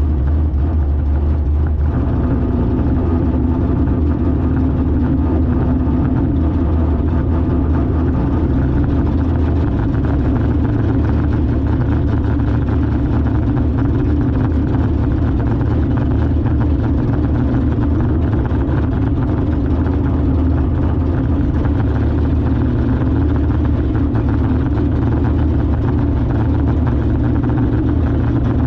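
Car engine idling steadily, a loud, even low rumble with no revving.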